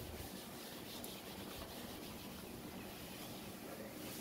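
Chalkboard eraser rubbing across a chalkboard in repeated strokes, wiping off chalk writing.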